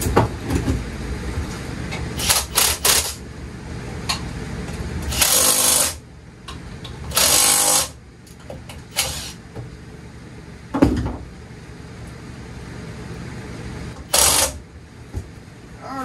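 Cordless drill run in several short bursts of about a second each, fastening parts at the go-kart's rear wheel and engine, with a sharp metal knock about eleven seconds in.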